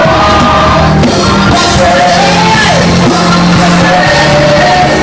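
Loud music with a voice singing a melody over a steady bass line.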